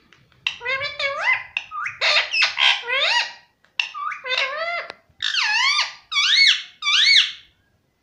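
Indian ringneck parakeet vocalising: a run of loud, squeaky calls in about seven short bursts, many sweeping up and then down in pitch.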